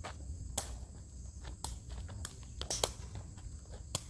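A takraw ball being kicked back and forth, a sharp smack about once a second at irregular intervals, with a steady high-pitched whine underneath.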